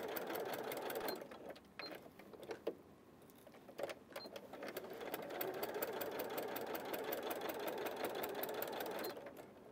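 Domestic electric sewing machine stitching bias binding onto a T-shirt sleeve, with a fast, even rhythm of needle strokes. It runs for about a second, stops, and there are a few light clicks. It starts again about four seconds in and stops just before the end.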